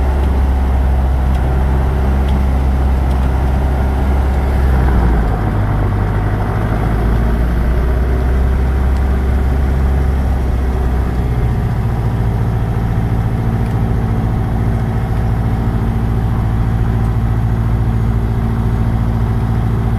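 Light aircraft's piston engine heard from inside the cabin, running steadily. Its pitch steps up about five seconds in and again about halfway through as the revs rise.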